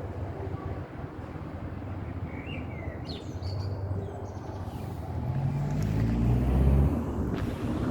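A motor vehicle rumbling close by and growing louder, loudest about six to seven seconds in, over steady traffic noise. A bird chirps a few times about three seconds in.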